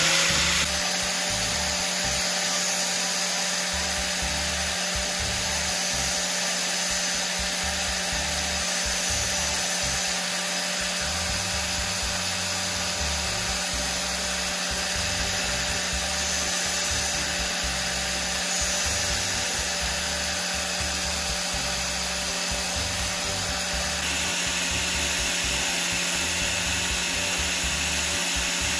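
Electric angle grinder fitted with a sanding disc, just switched on: it spins up in the first moment, then runs steadily at full speed with a constant whine. Near the end the sound shifts slightly as a drill bit's tip is held against the spinning disc.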